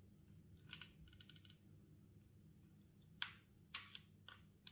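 Hard plastic clicks and taps from handling the plastic handle of a HIT rechargeable mosquito racquet: a soft rattle of light ticks about a second in, then a handful of sharper clicks in the last second and a half.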